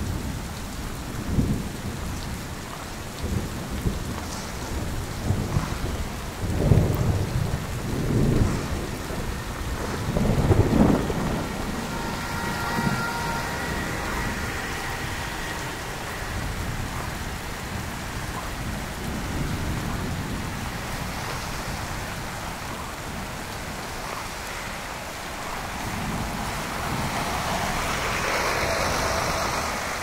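Street ambience in a heavy snowstorm: a steady wet hiss with irregular low rumbles of wind buffeting the microphone over the first ten seconds or so. Near the end the hiss swells as a vehicle's tyres pass on the slushy street.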